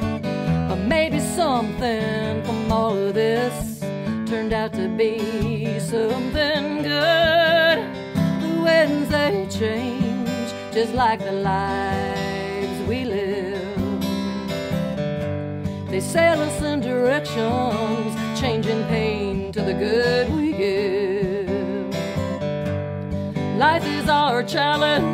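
Background music led by acoustic guitar, with a wavering melody line and no sung words.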